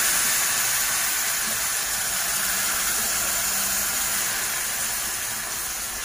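Pan of frying meat and onions sizzling and hissing steadily as boiling water is added and stirred in with a wooden spoon, the sizzle slowly dying down.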